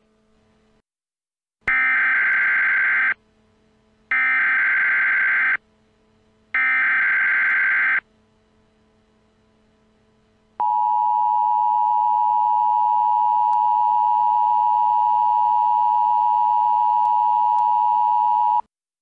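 Emergency Alert System tones: three bursts of data header tones, each about a second and a half long and about a second apart, then the steady two-tone attention signal held for about eight seconds.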